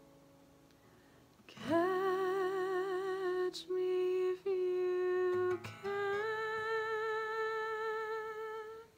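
A woman's wordless closing vocal, hummed or sung on a vowel: long held notes with a gentle vibrato starting about two seconds in, broken briefly twice, then a final note a step higher held until it stops near the end. The acoustic guitar's last chord is still fading faintly underneath.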